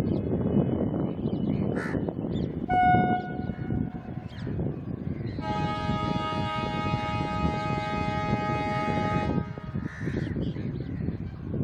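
Railway locomotive horn: a short blast about three seconds in, then a long blast of about four seconds with several tones sounding together, over a steady low rumble.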